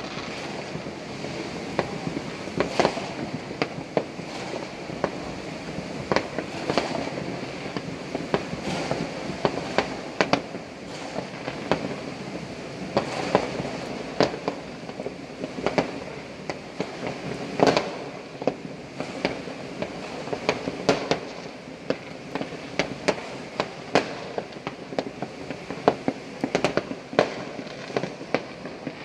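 Fireworks and firecrackers going off across a city at night: a steady background hiss of distant bursts with irregular sharp bangs on top, one or two a second, the loudest bang about eighteen seconds in.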